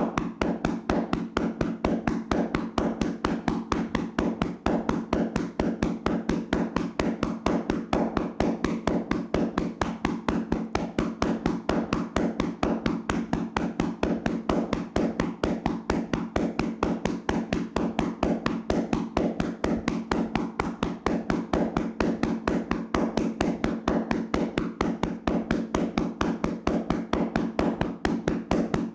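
Hands slapping rapidly and steadily on a person's body in a tapping massage, several slaps a second without a break.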